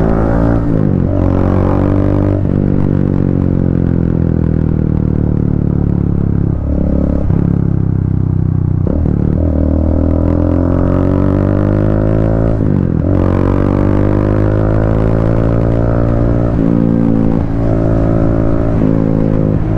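Triumph Speed 400's 398 cc single-cylinder engine heard from the rider's seat while riding. Its note falls slowly for several seconds at a time, broken by a few sudden jumps in pitch, about one, two and a half, nine and thirteen seconds in.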